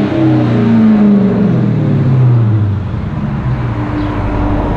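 Dodge Charger R/T's 5.7 HEMI V8 through Flowmaster Super 10 mufflers with no resonators, revs falling away after a blip of the throttle and settling back to a steady idle about three seconds in.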